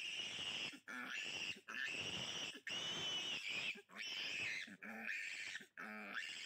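A three-day-old piglet squealing while held and restrained by hand: a run of about seven high squeals, each a little under a second long, with short breaks between them.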